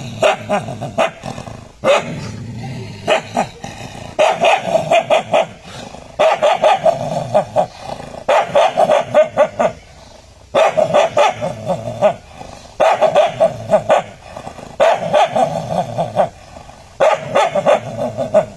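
Dog barking at its own reflection in a mirror, in rapid volleys of several barks each, about every two seconds.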